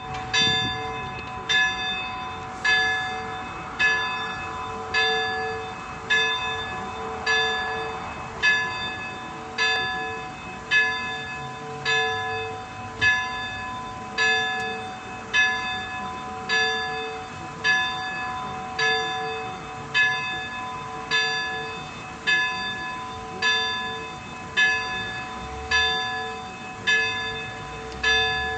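Small church bell tolling in an even rhythm, a little over one stroke a second, each stroke ringing on into the next.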